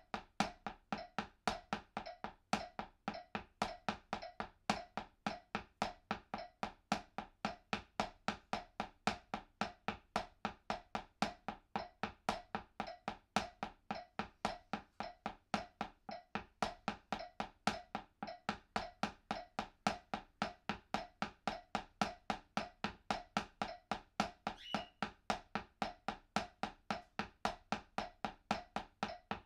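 Drumsticks striking a makeshift practice pad of books covered with a washcloth, playing single paradiddles (right-left-right-right, left-right-left-left) in a steady, even stream of about four strokes a second.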